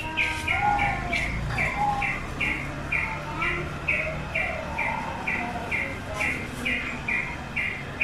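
Yellow-vented bulbul (trucukan) calling a steady series of short, sharp notes, about two and a half a second, with fainter lower bird notes behind them.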